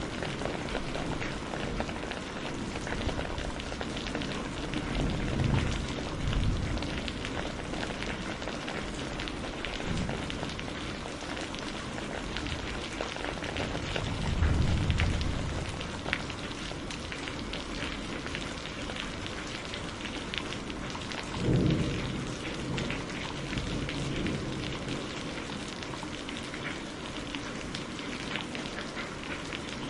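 Steady rain with a dense patter of drops, broken by low rumbles of thunder about five seconds in, around the middle and about two-thirds through.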